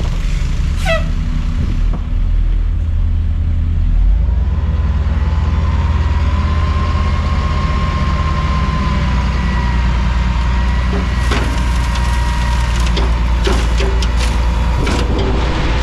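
Dump truck engine running under load while the hydraulic hoist raises the bed, with a steady whine setting in a few seconds in as the engine picks up. In the last few seconds the load begins to pour out past the tailgate, with knocks and rattles of falling material.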